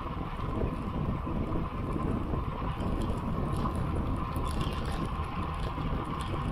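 Wind rushing over the microphone of a camera riding on a road bicycle, mixed with the tyres rolling on asphalt: a steady low rumble and hiss.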